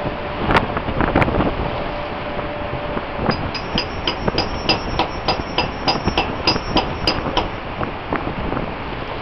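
Steady wind and ship noise, with a run of sharp, ringing metallic taps, about three a second, starting about three seconds in and lasting about four seconds.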